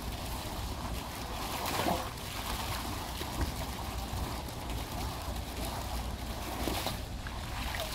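Steady splashing of a small fountain's bubbling jet falling back into its shallow stone pool, with the water sloshing as a Boston terrier swims around the jet.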